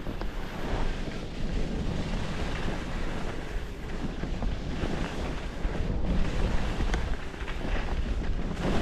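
Wind buffeting the microphone in a low rumble, over the hiss and scrape of skis sliding on snow during a downhill run.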